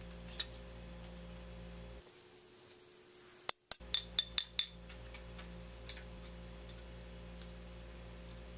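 Sharp metallic clinks of a steel ice pick against its brass tube sheath as it is drawn out: one click near the start, a quick run of about five about four seconds in, and one more a couple of seconds later. A faint steady hum lies underneath.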